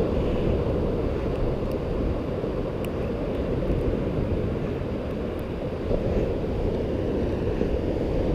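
Steady low rumbling noise of wind on the microphone and ocean surf on the beach.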